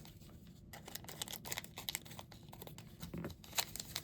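Plastic packaging crinkling and tearing as it is pulled open, a run of short crackles with a sharper snap about three and a half seconds in.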